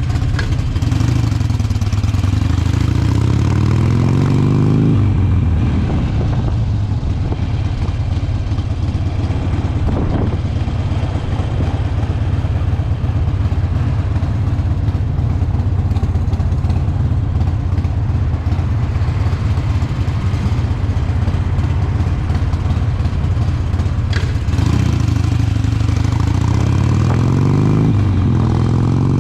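Harley-Davidson V-twin motorcycle engine under way, accelerating through the gears: the revs climb for about five seconds and drop at a shift, hold steady while cruising, then climb again near the end with another shift.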